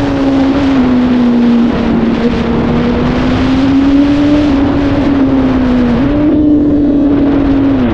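Honda CBR1000RR inline-four engine running at steady high revs under way, with heavy wind rush over the microphone. The engine note dips and then jumps up about six seconds in, and drops near the end.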